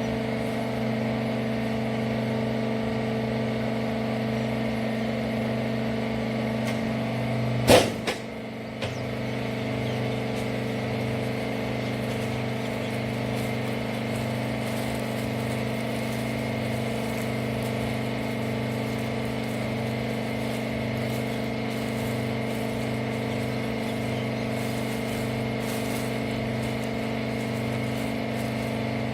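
Rag baler machine running with a steady hum. A single sharp clunk comes about eight seconds in, and the hum dips briefly after it.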